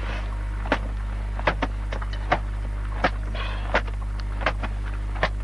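Round flatbread dough being slapped and pressed by hand on a wooden board: about eight short sharp slaps, roughly one every three-quarters of a second, over a steady low hum.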